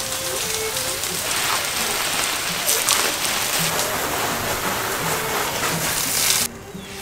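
Water jetting from a garden hose and splattering onto a table top and paving, a steady hiss of spray that cuts off suddenly near the end.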